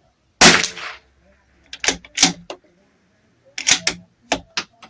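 A single .22 LR rifle shot from a Bergara B14R about half a second in, with a short ringing tail. It is followed by two quick runs of sharp metallic clicks, typical of the bolt being worked to eject and chamber the next round.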